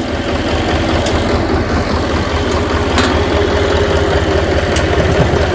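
HMT 3511 tractor's three-cylinder diesel engine idling steadily, with a few light clicks as the bonnet latches are undone.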